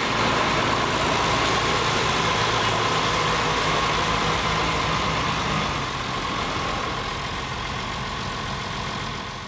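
Massey Ferguson 3000 Series tractor diesel engine running steadily, with a steady high whine over the engine note. It eases a little about six seconds in.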